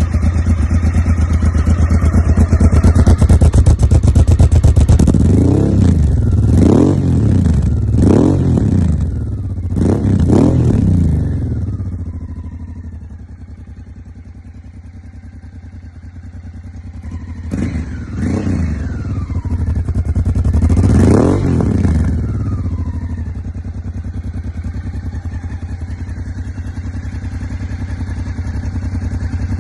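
Honda Africa Twin 750's V-twin engine with an Arrow aftermarket exhaust, idling and then revved in a series of throttle blips. There are four quick blips in a row early on, then it drops back to a quieter idle, then comes another group of blips before it settles to a steady idle.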